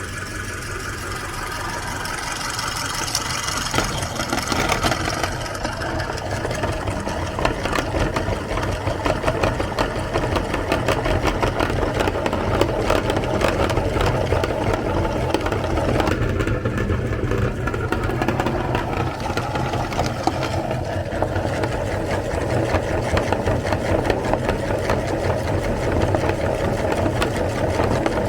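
Electric meat grinder running steadily, its motor humming under a rapid crackle of grinding as it crushes chocolate bars.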